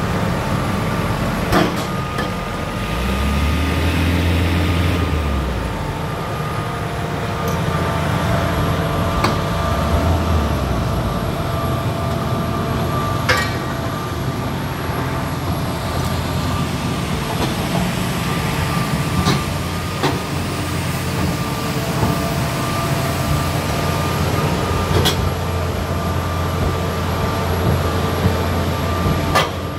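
Hitachi ZX350LC tracked excavator's diesel engine idling steadily, with a constant low rumble and a steady whine, and a few faint clicks.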